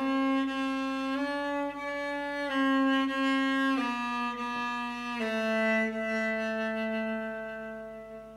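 Cello music: a slow melody of long bowed notes, each held for about a second and a half. The last note starts about five seconds in and is held, dying away toward the end as the piece closes.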